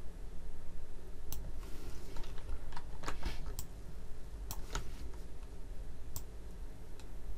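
Irregular clicks from a computer keyboard and mouse, about a dozen short clicks spread unevenly, over a steady low hum.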